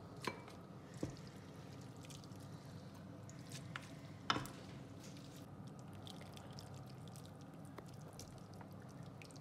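Wet noodles and vegetables squishing faintly as a wooden spatula lifts them from a frying pan into a bowl, with a few light clicks of the spatula against the pan, about a second in and again near four seconds, over a steady low hum.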